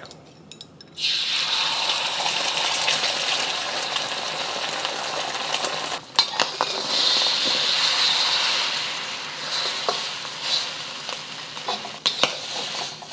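Eggs hitting hot oil in a wok and sizzling, the sizzle starting suddenly about a second in. The eggs are stirred, with sharp clicks of a utensil against the pan.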